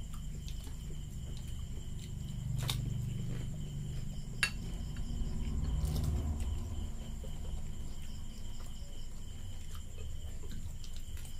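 Eating puchka: crisp puri shells cracked open and dipped into a small glass of spiced tamarind water, with chewing and handling at the plates. Two sharp clicks, one about three seconds in and one near the middle, of a puri or fingers against glass or plate.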